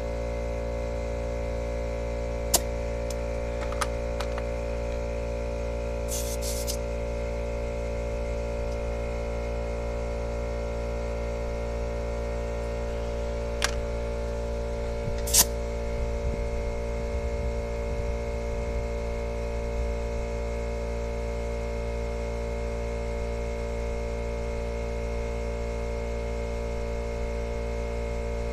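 McGraw 8-gallon oil-free air compressor running with a steady hum while a tire is aired up, broken by a few sharp clicks and two short hisses of air as the inflator chuck is worked on the valve stem.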